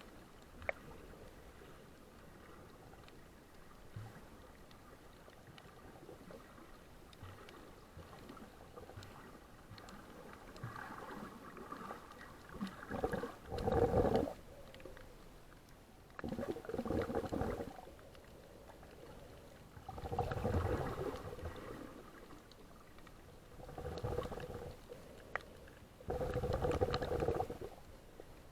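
Gurgling bursts of water, five of them about every three to four seconds, over a low steady background.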